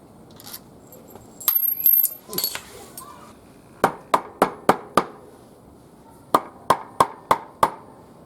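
Metal tools clinking, then two runs of five sharp, evenly spaced metallic strikes, like a hammer tapping on metal.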